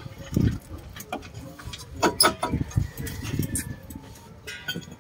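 A front brake disc rotor being worked loose and pulled off its wheel hub: a series of metallic knocks and clinks, loudest about two seconds in.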